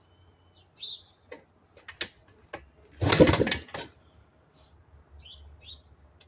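One kick on the Yamaha YZ490's kickstarter about three seconds in, spinning the two-stroke single over for just under a second without it catching. Songbirds chirp throughout.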